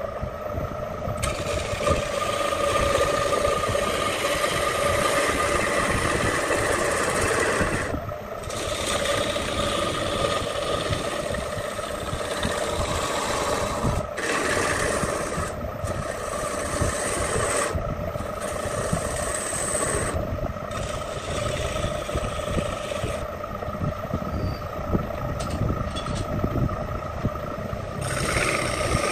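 Electric wood lathe running with a steady hum while a hand-held turning chisel scrapes and cuts a spinning wooden bowl. The cutting noise comes in stretches with several short breaks where the tool eases off.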